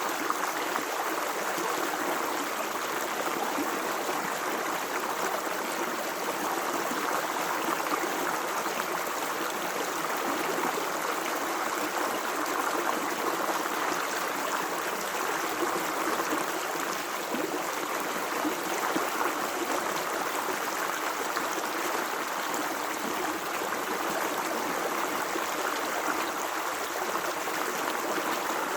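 Natural running water flowing steadily, a continuous even rush with no breaks or changes.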